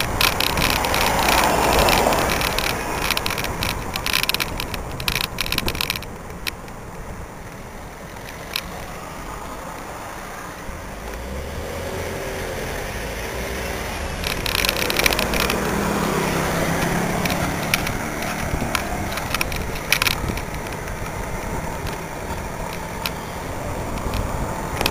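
Bicycle riding noise picked up by a handlebar-mounted camera: wind rushing on the microphone and the mount rattling over the road surface. About six seconds in it drops to a quieter stretch, with car engines running close by, before the rattling riding noise picks up again.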